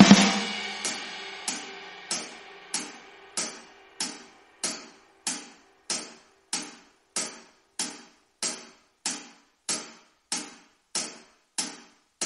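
Isolated drum kit: a loud fill dies away, then a lone cymbal is struck by itself on an even beat, about one and a half hits a second, each hit ringing briefly.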